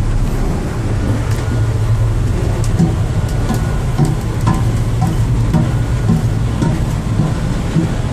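Steady low drone of a crew boat's machinery running underway, heard through the hull from inside the accommodation. Scattered footsteps and small knocks sit on top of it.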